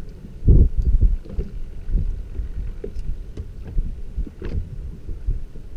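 Gusty wind rumbling on the microphone over the lap of water against a kayak's hull on the open sea, with a few faint small ticks.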